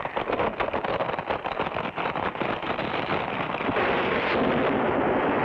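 Cartoon sound effect of a natural sandstone rock bridge collapsing: a dense crash of crumbling, falling rock with many small impacts, turning into a steadier rumble near the end.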